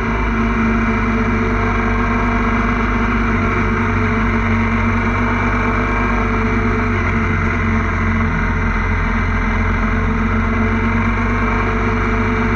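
Motorcycle engine running at a steady cruising speed, a constant droning hum under wind rush.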